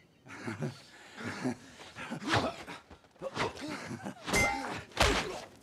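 Film duel soundtrack: men's shouts and grunts, then two heavy metal clashes about half a second apart near the end, as sword strikes meet a shield.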